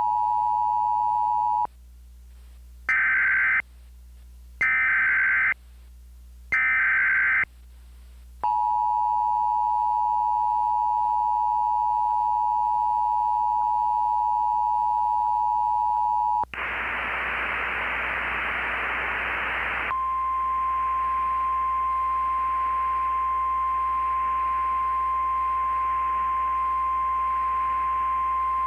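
Emergency Alert System tones: a short two-tone attention signal, then three one-second bursts of SAME digital header data, then the two-tone attention signal again for about eight seconds. About sixteen seconds in, a stretch of static gives way to a single steady weather-radio alert tone over hiss.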